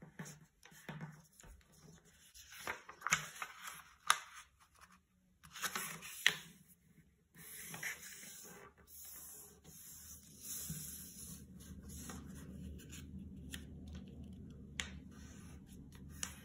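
Origami paper rustling as it is folded by hand, with fingers rubbing along the creases to press them flat, in irregular scrapes and a few sharp clicks. A low steady hum comes in about two thirds of the way through, under fainter rustling.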